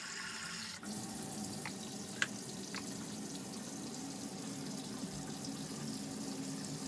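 Hot water running steadily from a camper's faucet. About a second in, the stream's sound changes sharply, as a coffee mug is held under it to draw a sample. A few faint light clicks follow.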